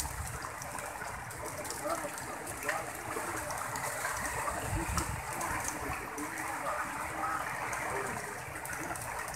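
Choppy sea water splashing and washing against a rock revetment, a steady rushing noise, with gusts of wind buffeting the microphone, strongest about five seconds in.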